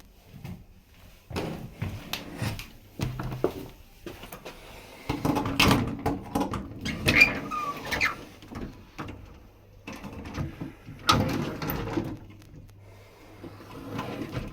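Room doors and cupboards being opened and closed: a run of knocks, rattles and sliding scrapes, loudest in two stretches in the middle and near the end, with a brief squeak.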